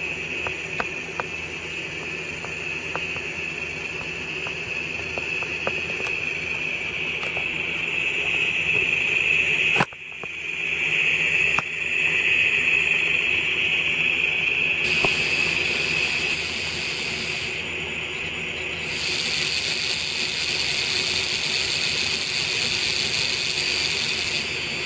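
N scale Tomix track-cleaning car's decoder-controlled vacuum motor running with a steady high whine as the train moves, with faint clicks of wheels over the track. There is one sharp click about ten seconds in.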